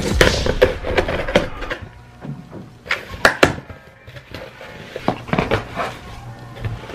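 Scissors slitting the packing tape on a cardboard shipping box, then the cardboard flaps being pried up and pulled open. A scraping stretch at first, sharp cardboard clicks and knocks about three seconds in, and more scraping and knocks later on.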